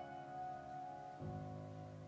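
Solo piano played slowly and softly: a high note rings on, then a low chord is struck about a second in and left to sustain.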